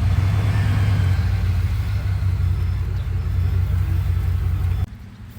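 Motor vehicle engine running with a steady low rumble, cutting off suddenly near the end.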